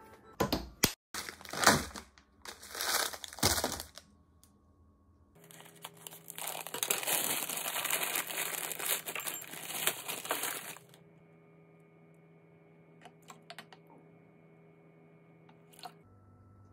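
A plastic bag of frozen green peas crinkling in several short loud bursts, then a longer stretch of rustling as the peas pour from the bag into a small ceramic bowl. Near the end, a few faint clicks, a spoon in the bowl of peas.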